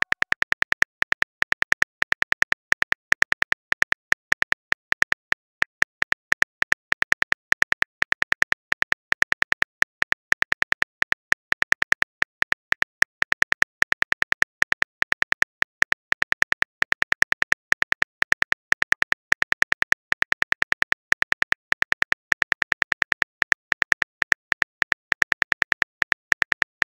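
Rapid, evenly spaced keyboard tap clicks, several a second: a smartphone typing sound effect as a long text message is keyed in.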